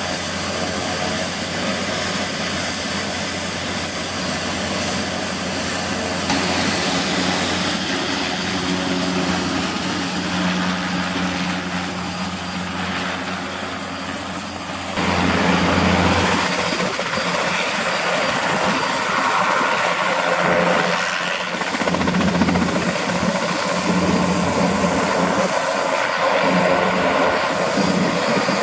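Turbine-converted Sikorsky S-58DT helicopter with coupled Pratt & Whitney PT6T turboshaft engines running with its rotors turning: a steady high turbine whine over the rotor and engine noise. About halfway through the sound gets louder and rougher as the helicopter moves off across the ramp.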